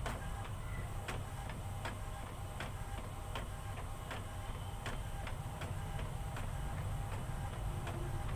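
Epson all-in-one printer's scanner carriage travelling slowly across the glass during a copy: a steady motor hum with regular ticks about every three-quarters of a second.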